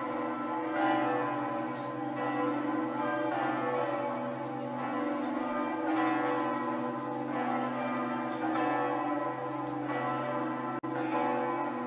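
Church bells ringing, strikes coming about once a second over a sustained hum of overlapping bell tones. There is a momentary dropout near the end.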